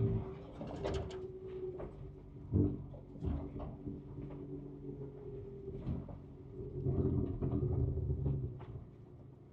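Ford Ranger Raptor's 3.0-litre twin-turbo V6 heard from inside the cab, its note rising and falling as the truck crawls a rough off-road trail, loudest for a stretch near the end. Short knocks and rattles from the truck jolting over the terrain come through throughout.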